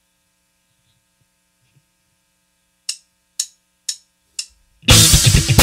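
Four sharp clicks, about two a second, counting in a song, then a rock band with drum kit and guitar comes in loudly near the end.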